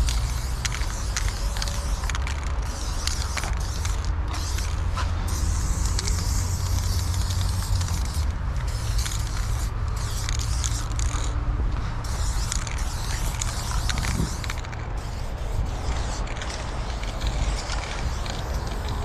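Aerosol spray-paint can hissing in stretches of a couple of seconds with short pauses between them, over a steady low rumble.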